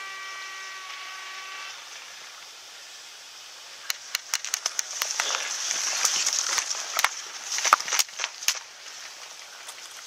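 Tall grass rustling and crackling against a head-mounted camera as the player moves through it, with a quick run of sharp clicks that is loudest in the second half. A steady hum of several even tones cuts off in the first two seconds.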